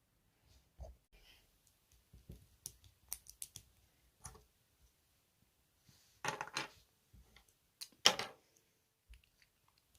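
LEGO plastic pieces clicking and tapping as they are handled, with two louder short rattles about six and eight seconds in.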